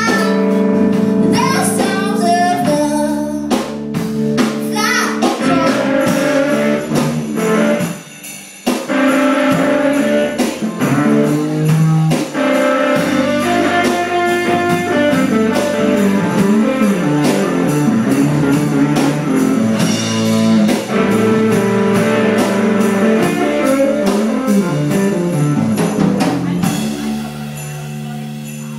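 Live rock band playing: electric guitars and drums with a woman singing. The music drops out briefly about eight seconds in and gets quieter near the end.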